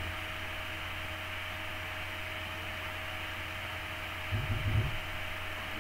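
Steady electrical hum and hiss of a recording's noise floor, with a faint steady tone above it. About four and a half seconds in, a brief low rumble lasting about half a second.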